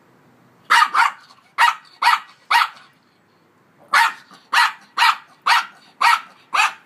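A small puppy barking in short, high-pitched barks: a run of five in quick succession, a pause of about a second, then six more.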